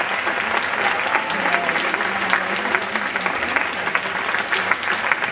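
Large audience applauding: a dense, steady patter of many hands clapping.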